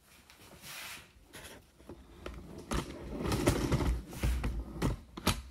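Light handling noise: rustling and scraping with a few sharp clicks, and a low rumble from about three to four and a half seconds in.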